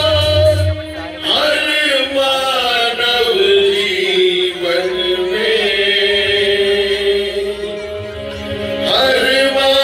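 Dramatic devotional music with chanted vocals, long held notes over a low drone, and a rising sweep about a second in and again near the end.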